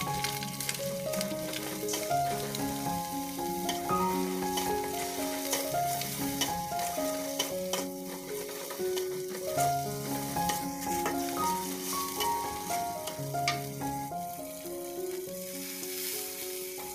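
Stir-frying in a metal wok: ground spice paste and egg sizzling in oil while a steel spatula scrapes and taps the pan. A background melody of single held notes plays over it.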